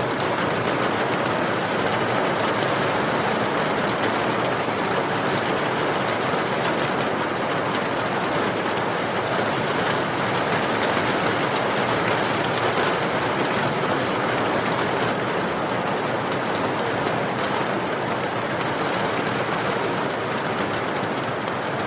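Steady, heavy rain pouring, with faint crackles of a wood fire burning in a fireplace.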